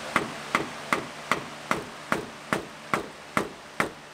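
Steady hammering on the frame of an old aluminum sliding patio door, about two and a half sharp blows a second, each with a short metallic ring, to knock the old door loose for removal.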